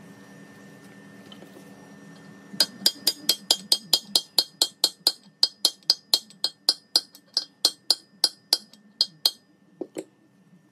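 A hammer tapping quickly on metal, about four light strikes a second, each with a bright metallic ring, starting a couple of seconds in and stopping abruptly after about seven seconds. One softer knock follows near the end.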